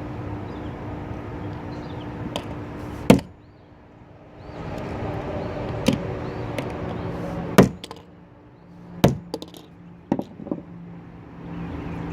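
Blows striking and smashing a plastic fidget cube: about six sharp cracking whacks at irregular intervals, the loudest about three seconds in, with two quicker lighter ones near the end.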